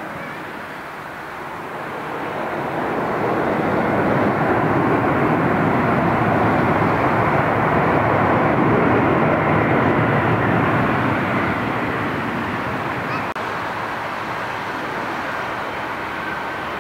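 Boeing 747-400's four jet engines during its landing roll: a broad roar that swells over a couple of seconds, holds loud for several seconds, then eases off as the airliner slows on the runway.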